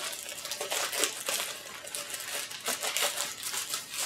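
Thin plastic packaging bag crinkling and rustling in irregular crackles as it is worked open by hand and a drone propeller guard is pulled out of it.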